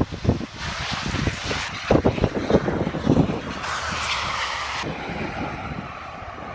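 Bombardier Dash 8 Q400 turboprop airliner rolling out along the runway after touchdown, its twin Pratt & Whitney PW150A turboprops and propellers giving a steady roar that swells twice and then eases as the plane moves away. Gusts of wind buffet the microphone throughout.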